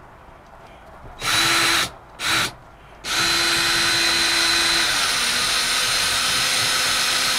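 Power drill fitted with a Torx bit driving a self-tapping screw through plywood into a van's metal wall. Two short trigger pulls come first, then a long continuous run, and the motor's pitch drops partway through as the screw takes load.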